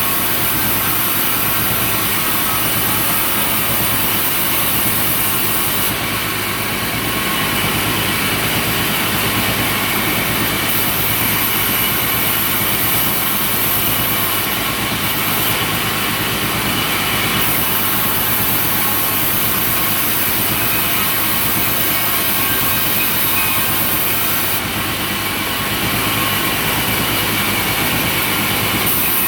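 Sawmill machinery running steadily, with a high hiss that comes and goes in stretches of several seconds.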